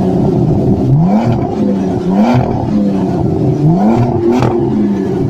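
A car engine revving repeatedly. Each time the pitch climbs quickly and holds high for a moment before dropping back, roughly every one to two seconds.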